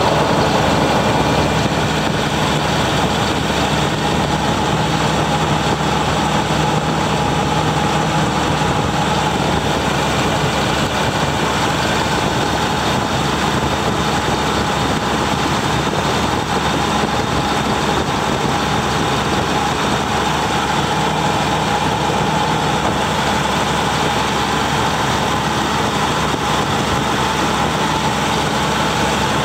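Caterpillar diesel engine of a Sullivan 750 portable air compressor running steadily, a loud, even drone.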